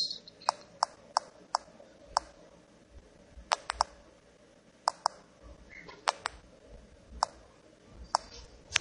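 Sharp single clicks of typing on a smartphone's on-screen keyboard, one per key press, about fifteen in an uneven run. The first five come at a steady pace, then pairs and singles follow with short pauses between.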